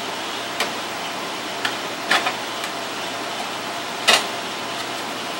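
A handful of short clicks and light knocks from reconnecting the battery wires and handling the battery inside an APC Smart-UPS 1400, the loudest about four seconds in, over a steady hiss.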